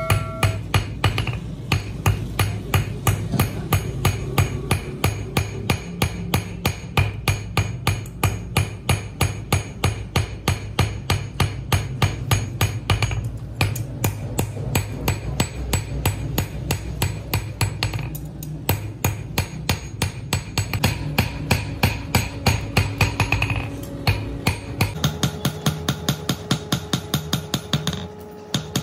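Hand hammer beating hot steel on an anvil in a steady rhythm, about three blows a second, each strike ringing, with two short pauses. The steel is from a rusty bearing being forged into a cobbler's tool.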